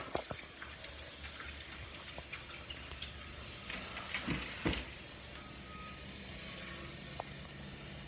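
Fingers handling a phone close to its microphone: scattered taps and clicks, with a louder stretch of rubbing and scraping about four to five seconds in.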